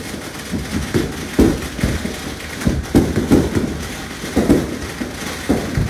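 Fireworks going off: an irregular run of booms and pops from shells bursting, about a dozen in a few seconds, the loudest about one and a half and three seconds in.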